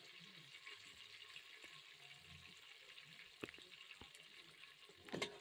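Faint, steady sizzle of red spice powder cooking in hot oil in a metal pot, with a couple of light clicks about three and a half and five seconds in.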